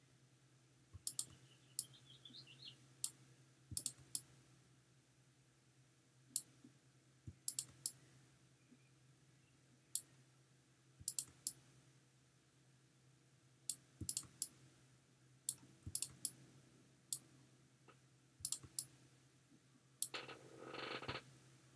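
Faint computer mouse clicking: irregular sharp clicks, often in quick pairs, every second or so, over a faint steady hum. Near the end a soft noise lasts about a second.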